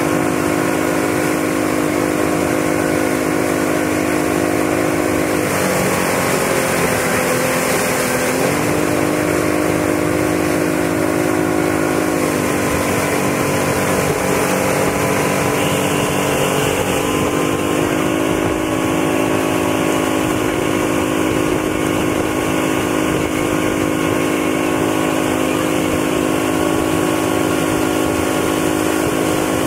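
Motorboat engine running steadily at towing speed, its pitch dipping slightly and recovering a few times, over a steady rush of churning water.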